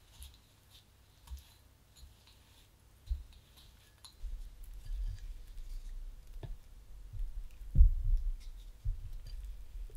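A whisk and then a spatula work softened butter and brown sugar in a glass bowl. At first there are faint scattered clicks and taps. From about four seconds in come heavier low thumps and knocks as the mixture is beaten, with the loudest knock near eight seconds in.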